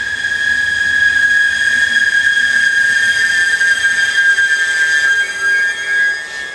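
Double-deck passenger train's brakes squealing as it runs into the station: a loud, steady, high-pitched squeal that wavers slightly near the end.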